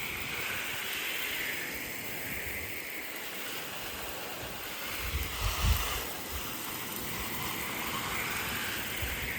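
Soft-wash sprayer hissing steadily as it sprays cleaning solution onto a garage door's rubber seal, swelling and easing as the spray sweeps. A brief low rumble about five and a half seconds in.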